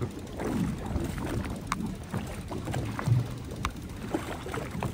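Small boat at sea: water and wind against the hull with uneven low knocking, and a couple of sharp clicks.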